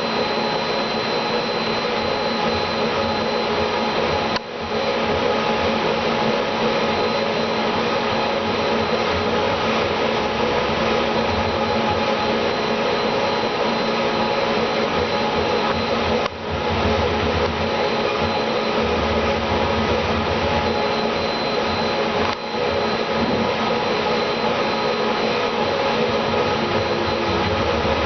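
Steady, whirring machine noise that breaks off briefly three times.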